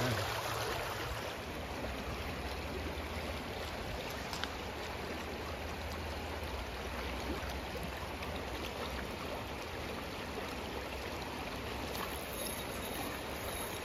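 Shallow, fast river water rushing steadily over rocks.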